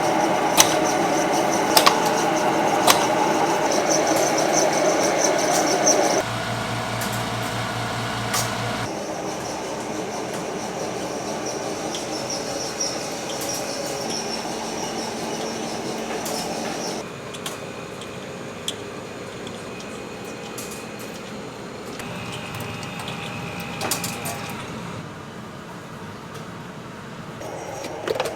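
Kitchen machinery running steadily with sharp clicks and clatter, changing abruptly several times as one noisy stretch gives way to another.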